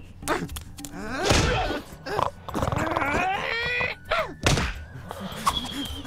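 Exaggerated cartoon snoring voiced by an actor: loud snores about a second in and again past four seconds, with a long wavering, pitched sound between them.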